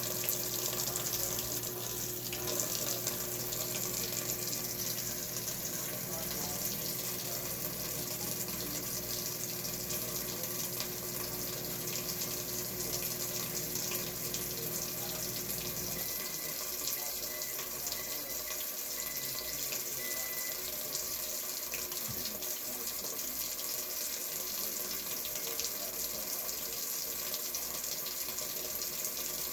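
Water running steadily from a tap into a sink. A low steady hum underneath cuts off about halfway through.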